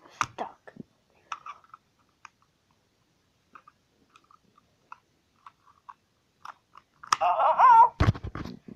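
Scattered crinkles and clicks of a clear plastic toy package being handled. About seven seconds in comes a brief, loud, wavering pitched sound, then a heavy low bump.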